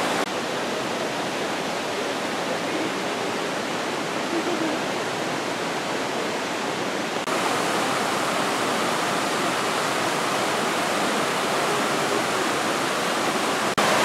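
Rushing water of a rocky creek running over boulders and small waterfalls, a steady, even roar that gets a little louder about halfway through.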